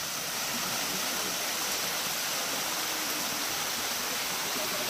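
Small waterfall cascading down mossy rock into a shallow pool, rushing steadily.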